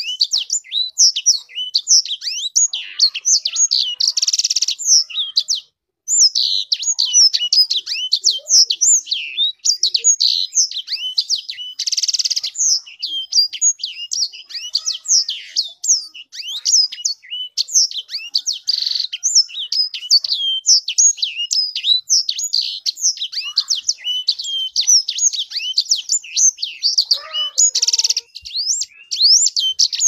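Caged sanger finch singing a long, fast, varied song of high chirps and twitters, broken several times by short buzzy trills, with one brief pause about six seconds in.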